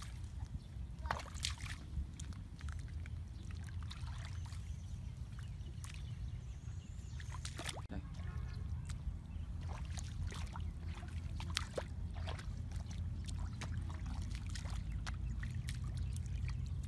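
Small splashes and sloshes of bare feet and hands moving through shallow muddy water, with a few sharper clicks scattered through, over a steady low rumble.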